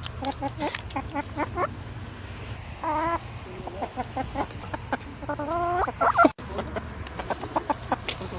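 Chickens clucking in a run of short calls, with a couple of longer, drawn-out wavering calls mixed in, over a steady low hum.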